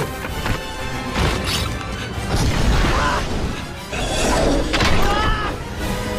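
Dramatic orchestral film score with several crashing impacts mixed in.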